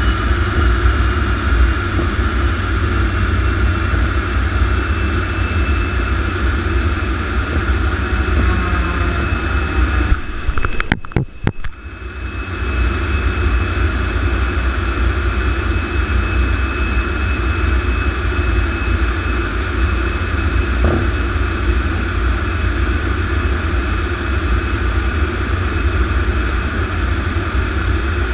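T-33 jet trainer's turbojet engine running at taxi power with the canopy open: a steady high whine over a low rumble. About ten seconds in the sound briefly crackles and drops out, then returns.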